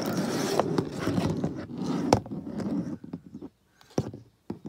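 Rustling, scraping noise for about three seconds, crackly and dense with sharp clicks in it, then a few separate light clicks near the end.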